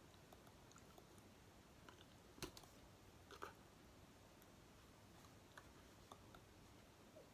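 Near silence broken by a few faint clicks and taps from a person signing, the clearest about two and a half seconds in and another about a second later.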